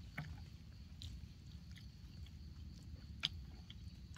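Quiet eating sounds: scattered faint clicks and taps of a spoon and chopsticks working noodles in a metal tray, with a sharper click about three seconds in.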